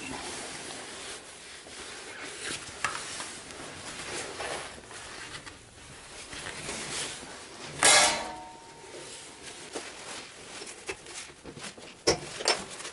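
A V-belt being worked by hand into the grooves of a multi-groove cast lathe pulley: belt and gloves rubbing and scraping on the pulley, with scattered metallic clicks. About eight seconds in there is one loud metal clank with a brief ring, and a few sharp clicks near the end.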